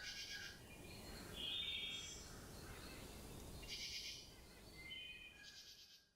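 Faint outdoor ambience with small birds chirping in short, rapid trilled phrases, four of them a second or more apart.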